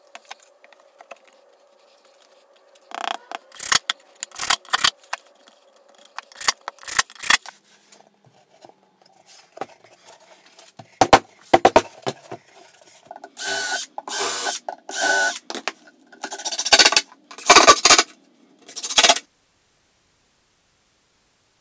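Power tool fastening the glued-up box panels: a run of short sharp bursts, then a few longer half-second bursts near the end.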